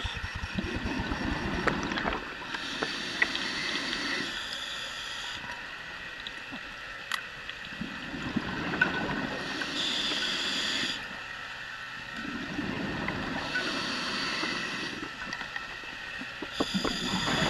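A scuba diver breathing through a regulator underwater, in slow regular breaths: the hiss of each inhale alternates with the low bubbling rumble of the exhaled air.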